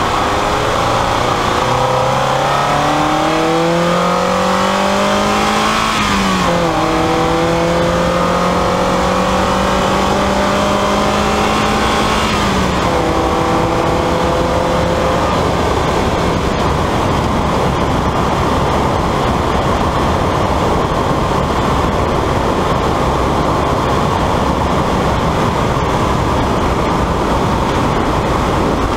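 A 1999 Mazda Miata's 1.8-litre four-cylinder engine accelerating at full throttle, its pitch climbing and then dropping at two upshifts about six and twelve seconds in. After that the engine note fades under a steady rush of wind and road noise at highway speed.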